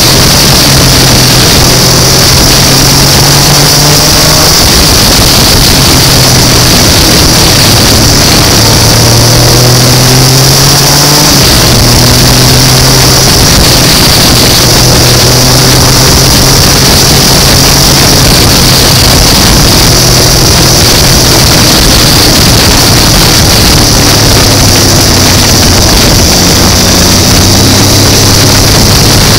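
Motorcycle engine running under way, its note rising and dropping in steps every few seconds, under heavy wind rush on the onboard microphone.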